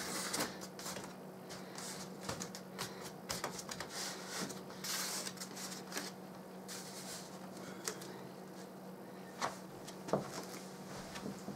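Foam wing halves of a model plane being handled and pushed together on a table: scattered light knocks and rustling of foam under the hands, over a faint steady low hum.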